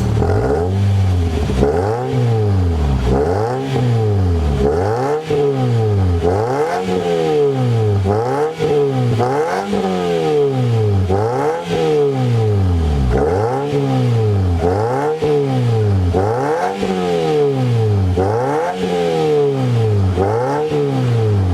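Toyota Vios engine revved through a dual aftermarket exhaust, blipped again and again, its pitch climbing and falling about three times every four seconds.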